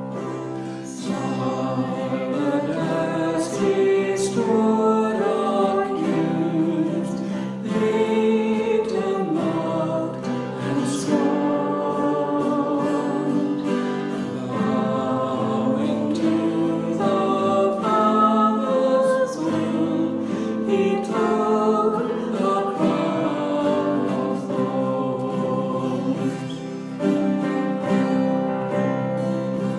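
Church music team singing a worship hymn together, with instrumental accompaniment.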